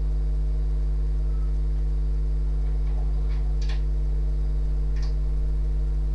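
Steady low electrical hum with a stack of even overtones, and a few light clicks about three to five seconds in.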